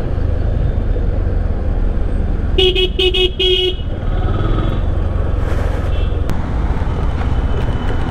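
Steady low rumble of wind and engine from a moving motorcycle in traffic. About two and a half seconds in, a vehicle horn gives three short beeps in quick succession.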